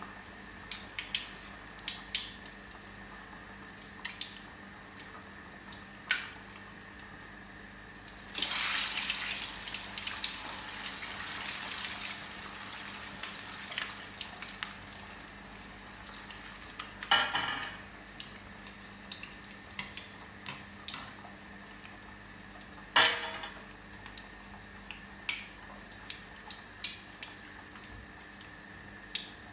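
Oil sizzling and crackling in a kadai as vadai deep-fry, with a louder stretch of sizzling about a third of the way in. Two short loud sounds come later, about six seconds apart.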